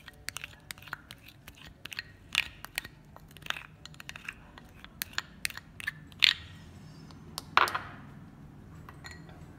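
Plastic spoon scraping a thick ground paste out of a glass bowl and tapping against the bowls: a string of irregular sharp clicks and taps, dying away in the last couple of seconds.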